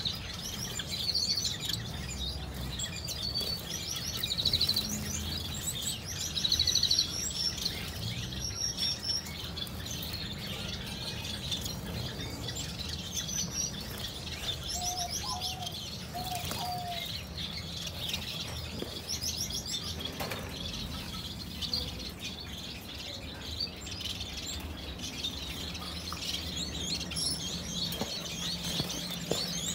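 Small cage birds chirping and twittering, with quick high trills of rapidly repeated notes, busiest in the first half, and a couple of short lower notes about halfway through, over a steady low hum.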